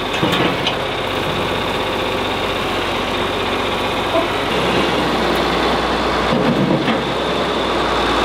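Farm tractor engine running steadily, its low hum shifting in tone about halfway through.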